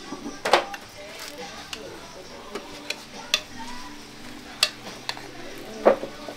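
Metal cooking pots being handled: irregular sharp clanks and knocks of spoons and lids against the pots, over a steady hiss. The loudest clanks come about half a second in and again near the end.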